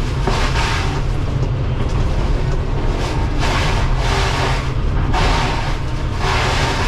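Excavator engine running hard under load while its Shearex VM-40 forestry mulcher head grinds through brush and wood. A steady low engine drone, with irregular surges of grinding and shredding noise every second or so as the head bites in.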